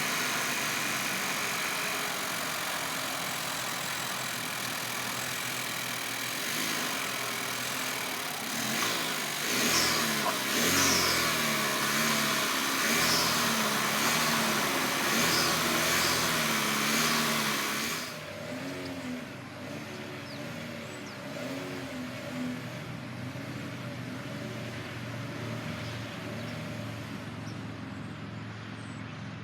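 2021 Chevrolet Malibu's 1.5-liter turbocharged four-cylinder engine idling steadily, then revved repeatedly in a series of rises and falls from about a third of the way in. A high hiss drops away about two-thirds through, and the revs carry on quieter.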